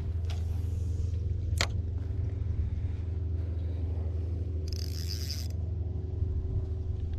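A steady low rumble and hum, with a sharp click about a second and a half in and a brief hiss about five seconds in.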